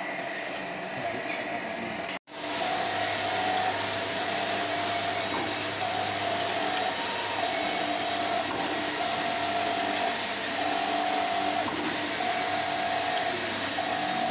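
Surface grinding machine running steadily with a constant grinding hiss and hum, plus a tone that comes and goes about every second and a half. The sound cuts out briefly about two seconds in, then resumes.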